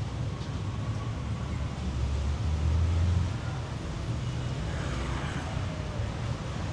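Low rumble of motor traffic on a city street, swelling as a vehicle passes about two to three seconds in.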